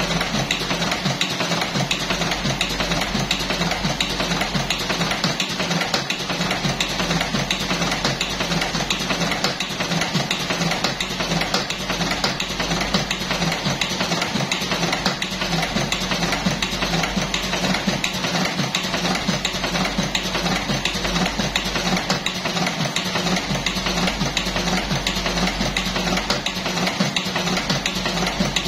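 Buffalo V5S electric cigarette filling machine running steadily: a motor hum under a fast, even mechanical clatter.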